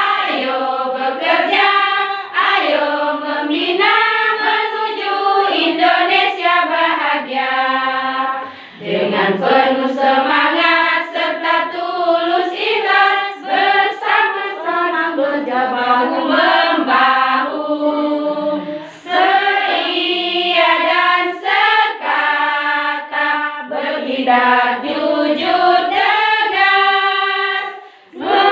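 A group of women singing a song together in chorus, with brief pauses between phrases.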